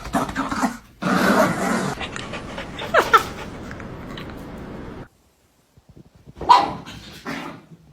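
A dog vocalizing in short calls, with a brief break to silence about five seconds in and a loud call soon after.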